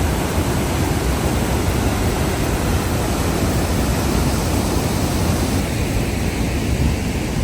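Powerful waterfall rushing close by: a loud, steady wash of falling water.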